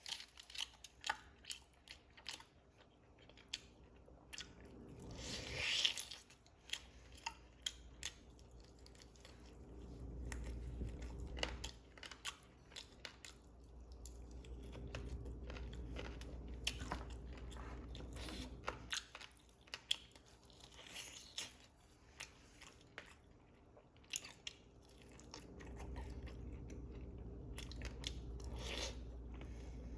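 Chewing and crunching of chicken wings and fries, with many scattered sharp bite clicks and stretches of low rumbling chewing.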